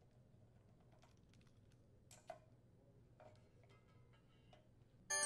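Faint scattered clicks and light metallic taps of a socket driver and bolts as the ignition coil mounting bolts come off a Kohler Command twin-cylinder engine. The sharpest click comes about two seconds in.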